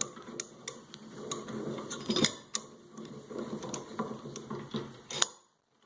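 Yost LV-4 4.5-inch bench vise being cranked open by hand: the screw and sliding jaw give a run of irregular ticks and clicks. A sharp click a little past five seconds, then the sound cuts off.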